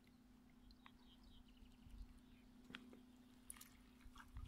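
Near silence: a faint steady hum with scattered faint ticks and a few light knocks near the end, from a trap rope being hauled in by hand.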